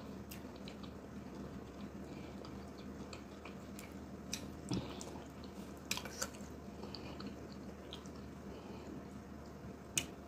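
Quiet close-up eating sounds of ogbono soup and garri eaten by hand: soft chewing and wet, sticky squishing of the slimy soup and dough, with a few short sharp clicks, the loudest near the end.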